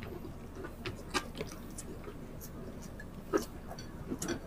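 Close-miked wet chewing and lip-smacking of people eating rice and tocino with their hands: scattered small mouth clicks, with a sharper smack about a second in and another past three seconds.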